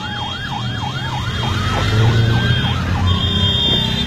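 Emergency vehicle siren cycling quickly, about four sweeps a second, then changing to slower rising and falling glides partway through, over a low vehicle rumble.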